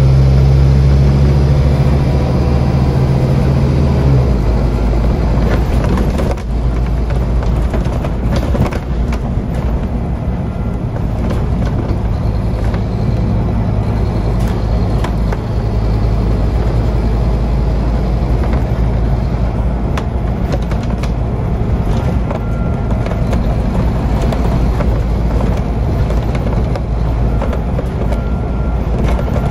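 Scania CN230UD OmniCity double-decker bus engine heard from inside the lower-deck saloon as the bus drives, a deep steady drone with road noise. The engine note changes about four seconds in, and there are occasional knocks and rattles from the bodywork.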